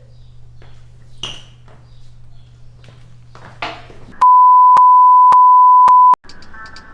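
Electronic bleep sound effect: one loud, steady, high tone held for about two seconds, starting about four seconds in and cutting off abruptly. Before it there are only a few soft rustles over a low hum, and music starts right after it.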